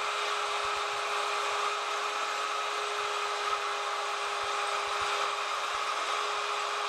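Router on a router lathe running steadily with a constant whine, its cutter routing flutes into a spalted beech blank.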